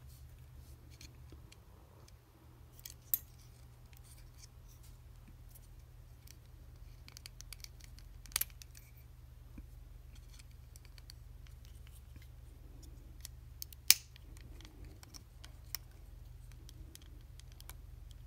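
Plastic joints and parts of a Robot Spirits Atlas Destroyer action figure clicking as it is handled and posed: many small ticks and three sharper clicks, the loudest about two-thirds through, over a low steady hum.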